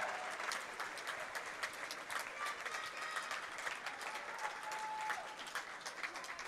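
Spectators and players in a school gym applauding steadily, many scattered individual claps blending into one continuous patter.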